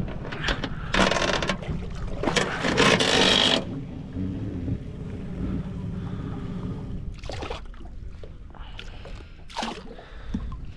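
Wind and water noise on a small boat. A steady low rumble runs throughout, with louder rushes of noise about a second in and again from two to three and a half seconds, then two brief ones near the end.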